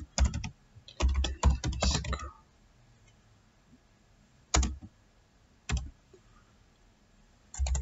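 Typing on a computer keyboard: a few keystrokes, then a quick run of keys about a second in, then two single keystrokes about a second apart, and a short burst of keys near the end.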